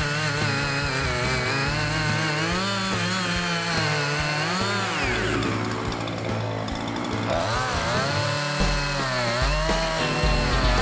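Chainsaw running, its engine pitch sliding down about halfway through and rising again later as it is throttled, while cutting up storm-felled trees.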